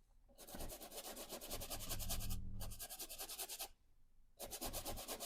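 Paintbrush scrubbing oil paint onto canvas in quick back-and-forth strokes, about eight a second. There is a long run of strokes, a pause of under a second, then a shorter run near the end.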